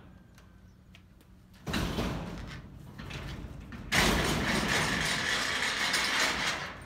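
Corrugated sheet-metal barn door being unlatched and pulled open. A sudden metallic rattle comes about a second and a half in, then a long, loud grating rattle as the door swings open, which fades near the end.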